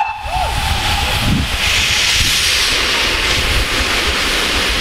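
Steam locomotive blowing off steam, a strong hiss that swells up about a second and a half in and carries on steadily. A whistle note fades out in the first second.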